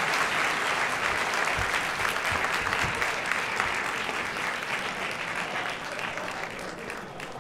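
Audience clapping, the applause thinning out and fading toward the end, with a few dull low thumps in the first half.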